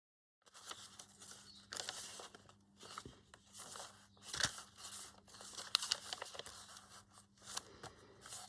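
Paper and card being handled and shuffled: bursts of rustling and crinkling with a few sharp clicks, starting about half a second in.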